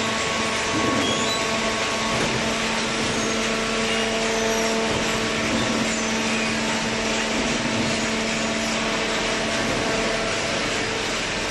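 Paper baling machine running: a steady machine hum with several held tones over an even hiss.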